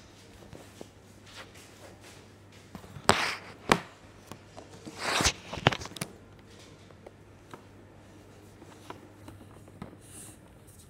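Handling noise from a handheld phone held against clothing: rubbing swells and several sharp knocks in the middle, over a steady low hum.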